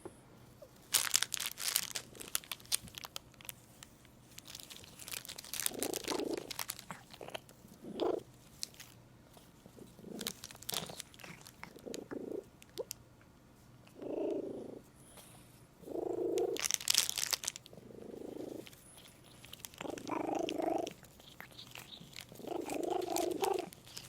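A cat purring loudly in rough pulses about every two seconds while chewing on crinkly plastic gift wrap, with bursts of sharp crackling from the plastic.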